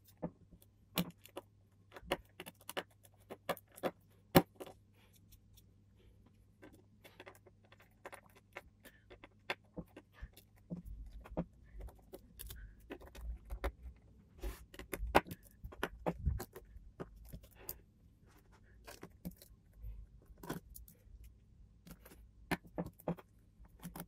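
Small screwdriver turning out the screws of a hard drive's controller board: irregular sharp metallic clicks and taps of the tip on the screw heads and the drive's metal case. From about the middle on, low knocks and rubbing from the drive being shifted on the table come in.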